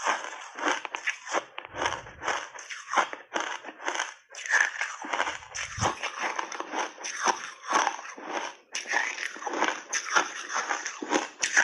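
Refrozen shaved ice being bitten and chewed, with rapid, irregular crunches running on without a break.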